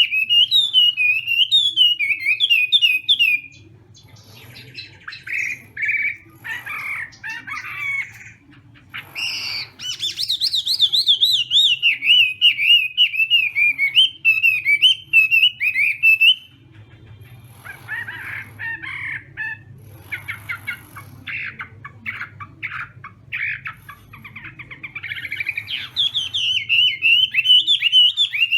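Chinese hwamei singing: loud, rapid, wavering whistled phrases, broken twice by stretches of quieter, rougher chattering notes before the full song resumes.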